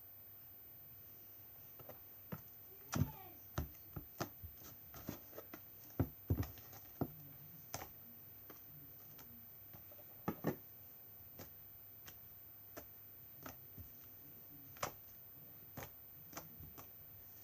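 Hand-made glossy slime being squeezed and stretched by hand, giving faint, irregular sticky clicks and small pops.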